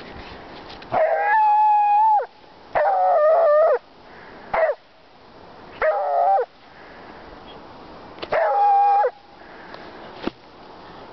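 A beagle baying: five loud, drawn-out howling barks, the first the longest and the third very short. It is the excited bay of a dog demanding that its frisbee be thrown.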